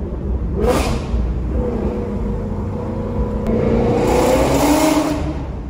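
Vehicle engine running while driving, with steady low road rumble; the engine pitch rises as it accelerates, and road and wind noise swell about three and a half seconds in.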